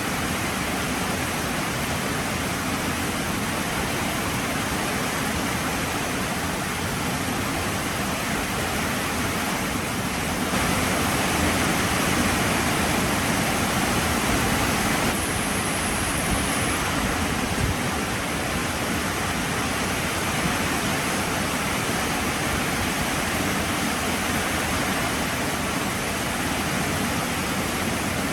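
Heavy rain falling steadily, a dense even hiss that grows a little louder for a few seconds near the middle.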